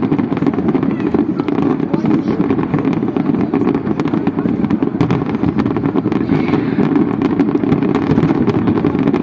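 Fireworks display going off in a dense, continuous barrage: many rapid cracks over a steady low rumble.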